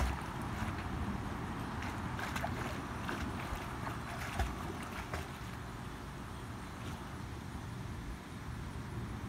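Pool water splashing as a snorkeling swimmer kicks and paddles along the surface, with irregular sharp splashes in the first half that thin out after about five seconds, over a steady low rumble.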